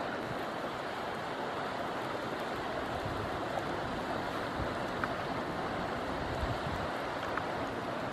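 Steady rushing of a flowing river, with wind buffeting the microphone and a couple of faint short ticks.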